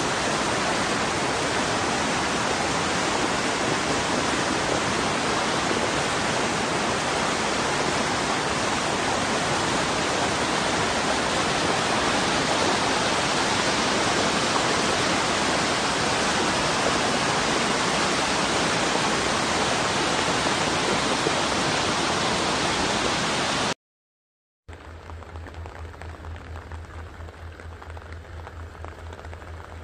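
Muddy floodwater rushing through a village street in a loud, steady torrent. About 24 seconds in it cuts off suddenly. After a second of silence comes a much quieter, steady noise with a low hum.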